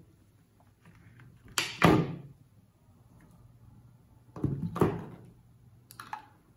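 Plastic bottles and containers being set down one by one on a tabletop: dull knocks, a double knock about two seconds in, another just before five seconds, and a lighter one near the end.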